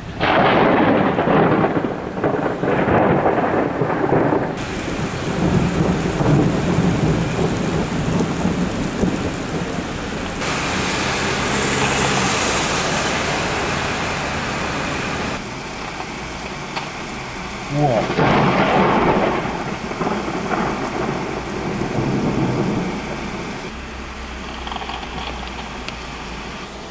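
Thunder during a heavy thunderstorm, with rain throughout. A loud peal begins right at the start and rumbles for about four seconds. A second peal breaks in sharply about eighteen seconds in and rolls away over a few seconds.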